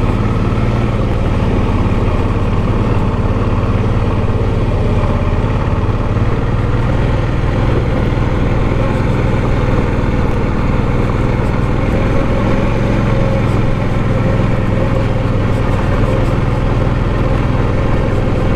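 Motorcycle engine running steadily at low revs in first gear, near tick-over, crawling up a steep climb.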